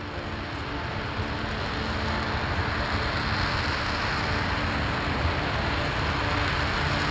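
RS-25 liquid-hydrogen/liquid-oxygen rocket engine firing on a ground test stand during a static-fire test, heard from a distance as a steady rushing roar. It swells over the first couple of seconds, then holds.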